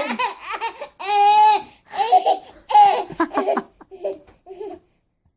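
A baby laughing in several high-pitched bursts, with one long squeal about a second in: delighted laughter set off by a pretend sneeze.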